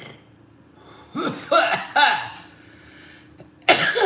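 A woman's voice making short non-word vocal bursts, each falling in pitch: three in quick succession about a second in, and one more near the end.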